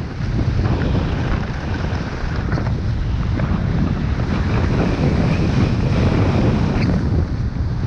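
Wind rushing over the microphone of a camera carried by a downhill skier, a steady low rumble, with the hiss of skis sliding on groomed snow underneath.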